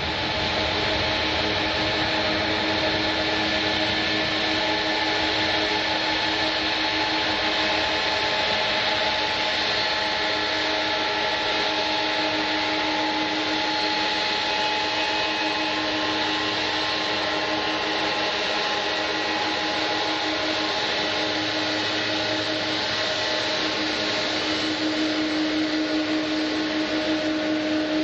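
Jet airliner engines running: a steady rush with a few held whining tones, holding level and pitch throughout.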